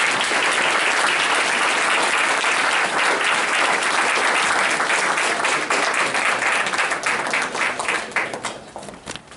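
Audience applauding, a dense steady clapping that thins to scattered claps and fades near the end.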